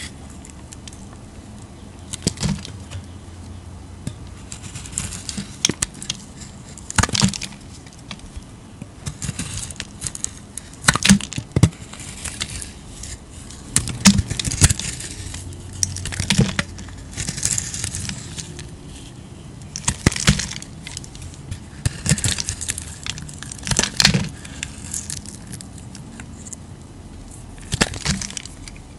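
A knife slicing through bars of dry soap with a crusty edge: crisp snaps and crackling crunches as the blade cuts, repeated at irregular intervals every few seconds.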